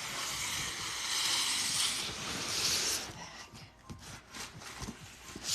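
Rustling and rubbing of a fabric duffel bag being handled, a loud rush of noise for about three seconds, then quieter scattered rustles and light knocks.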